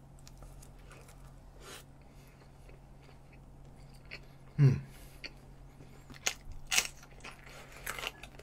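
Close-miked chewing of a mouthful of spicy stir-fried webfoot octopus, with a brief low sound about halfway. Near the end come several sharp, crisp crunches as a raw green pepper is bitten.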